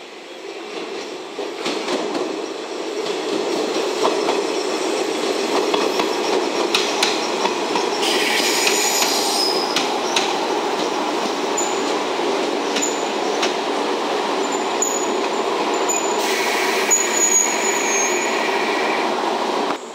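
JNR 381-series limited express train running past along a station track, its rumble swelling over the first few seconds and then holding steady. High squeals from the wheels come in around eight seconds in and again near the end.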